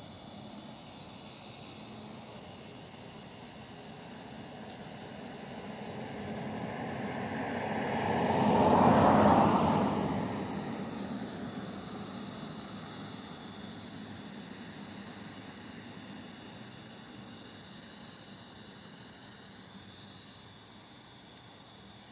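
A vehicle passing by: its noise swells over several seconds, is loudest about nine seconds in, then fades away. Insects chirp high and steadily in the background, about once a second.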